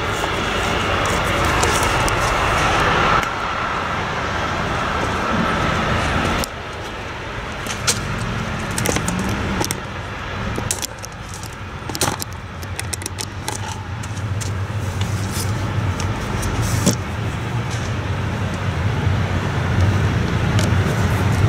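Scattered light metallic clicks and clinks of a screwdriver working a motorcycle battery's terminal bolts, over a steady low rumble like road traffic. The background changes abruptly about three and six seconds in.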